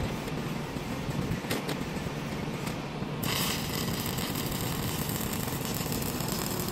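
Stick (MMA) welding arc struck about three seconds in, then a steady hiss as the electrode burns along the tank seam, over a steady low background rumble.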